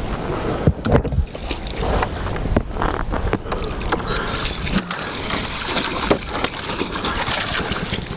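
Water splashing and sloshing beside a kayak as a hooked Chinook salmon thrashes at the surface and a landing net is dipped for it, with wind rumbling on the microphone and scattered sharp knocks.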